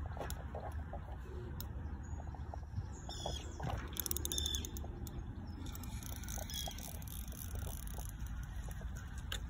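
Small birds chirping around the lake over a steady low rumble, with a quick run of rapid clicks about three to four seconds in as the feeder rod is lifted from its rest.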